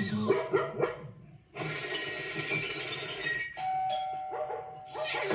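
A dog barking in the first second and again near the end. Between the barks is a stretch of rushing noise, then a steady ringing tone lasting about a second.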